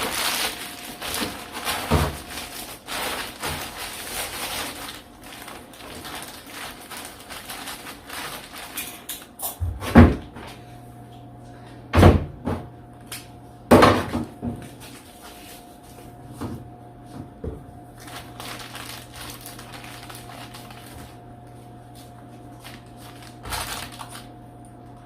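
Stiff insulation pieces being handled and knocked together, with crinkly rustling at first and then several sharp knocks. A steady low hum starts about ten seconds in.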